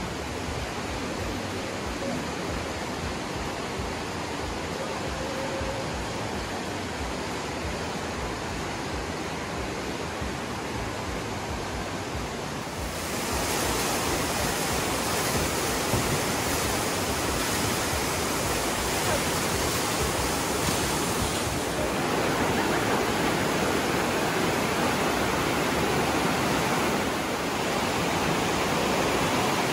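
Rushing white water of the Aare river pouring through a narrow rock gorge: a steady, even rush that turns suddenly louder a little under halfway through.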